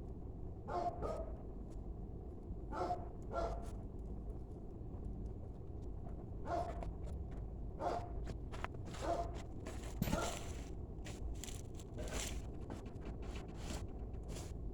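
Open fire crackling: a steady low rumble with scattered sharp snaps and pops, about a dozen of them, some carrying a short pitched ring, and a cluster of quick crackles about ten seconds in.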